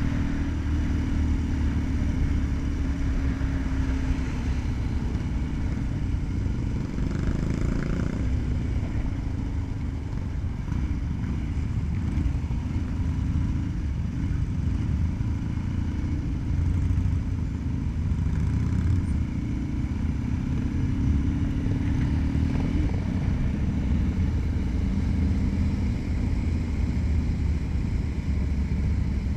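Motorcycle engine running under way, heard from the rider's seat. Its steady note eases off about a third of the way through, then pulls evenly again.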